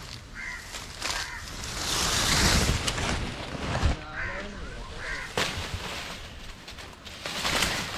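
Leafy vines and dry leaf litter rustling and crackling as they are pushed aside and pulled by hand, loudest from about two to four seconds in and again near the end. A few short bird calls sound faintly behind.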